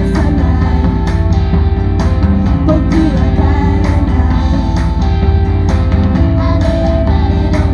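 Loud live rock music: guitars and a drum kit, with cymbal hits about once a second, and a voice singing over it.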